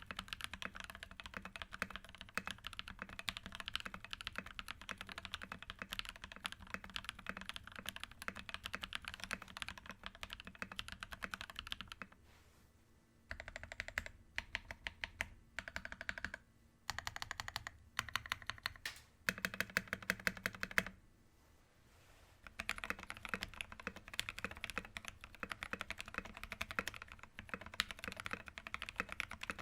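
Fast typing on a 60% mechanical keyboard with lubed linear switches, an aluminium plate and thick PBT MT3 keycaps: dense, even key strokes without clicks or bumps. The typing breaks off briefly a few times, and after a longer pause near the end it resumes on a different switch: JWK linears before the pause, Gateron Inks after it.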